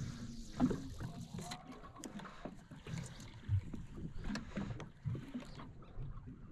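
Water lapping against the hull of a small aluminium boat, with scattered light knocks and clicks.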